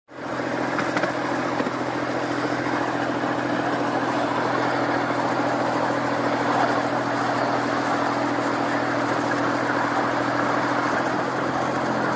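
Miniature ride-on train locomotive running along its track: a steady drone from its motor over the constant rolling noise of the wheels on the rails.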